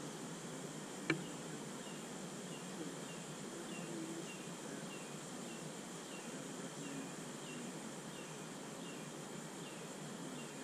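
Honeybees buzzing steadily around an open hive, with one sharp knock about a second in and a faint high chirp repeating about twice a second.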